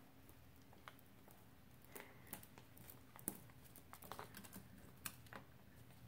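Faint, scattered clicks and taps of an African grey parrot's beak and feet on a marble countertop, the sharpest about halfway through, over near silence.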